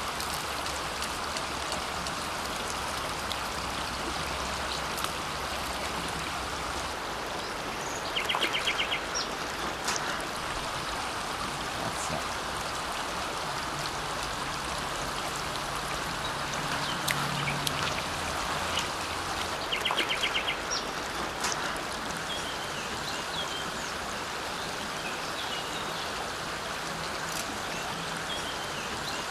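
Shallow river water running steadily. Twice, about eight and twenty seconds in, a short run of rapid clicks cuts through it.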